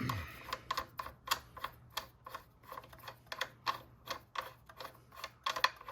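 Ratchet wrench clicking steadily as a bolt on the front axle of a Suzuki GSX-R600 is backed out: a run of quick, light metallic clicks, a few each second, with slight pauses between strokes.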